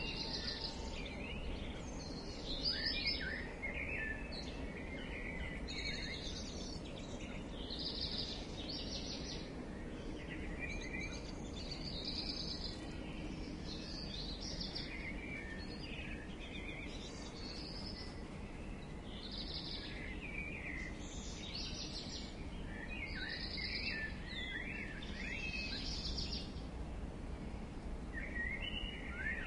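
Early-morning garden dawn chorus: several birds chirping and singing in short, overlapping phrases every second or two, over a steady low background rumble.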